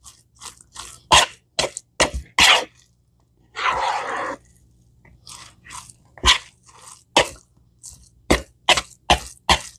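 Chicken salad being stirred in a plastic mixing bowl: irregular wet squishing and crunching strokes as the mayonnaise is worked into the chopped chicken. About three and a half seconds in comes a longer scrape of about a second.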